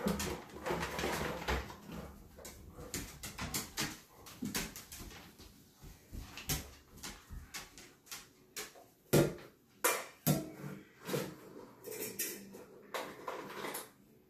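A stainless-steel dog bowl being handled on a tile floor, clinking and knocking in a string of irregular knocks, with dry dog food spilling and rattling. The loudest knock comes about nine seconds in.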